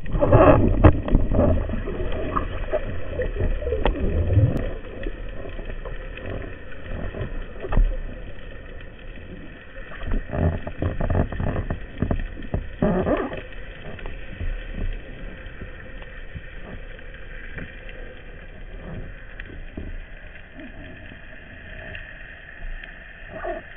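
Muffled underwater water noise heard through a camera's waterproof housing: irregular rushing and gurgling as the spearfisher swims, louder in the first few seconds and again around ten to thirteen seconds in, with faint clicks.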